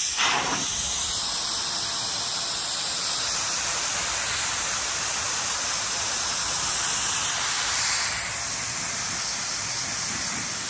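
Targeted cryotherapy machine blasting a steady, loud hiss of cold spray onto the skin. It starts abruptly and holds an even level throughout.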